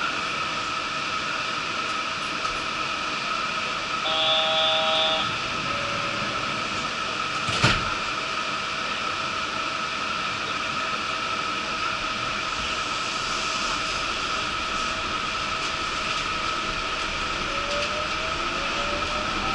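Inside the cab of a Yurikamome rubber-tyred automated guideway train: a steady hum of onboard equipment, a short chime about four seconds in and a single knock near eight seconds. Near the end a rising whine of the electric drive sets in as the train pulls away.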